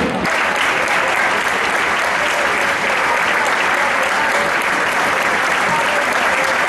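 A large football stadium crowd applauding steadily, with faint voices mixed in.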